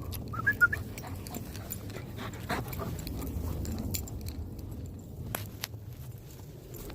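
Two shepherd dogs at play, one giving a few short, high yelps about half a second in, followed by scattered short clicks and crunches.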